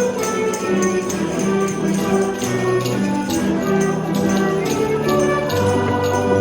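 Music with held chords and a steady beat of sharp percussion hits, about three a second.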